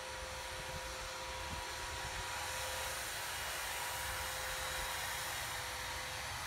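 Outdoor ambience with wind buffeting the microphone, plus a faint steady hum that stops shortly before the end.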